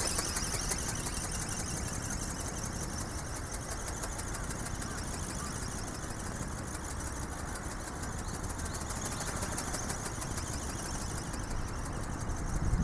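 Small RC ornithopter's geared brushless electric motor whirring steadily in flight, a high thin whine with a rapid flicker, slightly louder at first. Low wind rumble on the microphone underneath.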